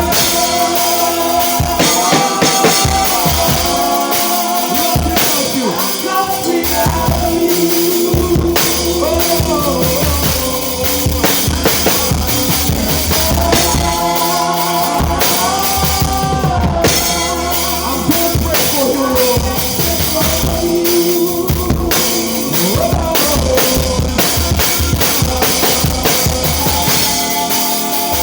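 Live worship band playing an instrumental groove: a drum kit keeping a busy beat of kick, snare and rimshots, under a steady bass and a held, sliding melody line.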